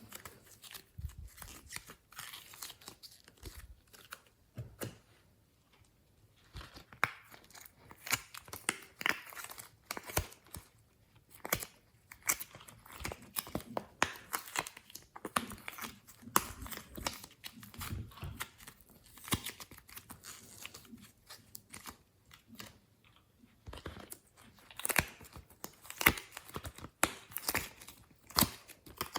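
Glossy slime being squeezed, stretched and kneaded by hand, giving irregular sticky clicks, pops and crackles, with a few quieter pauses.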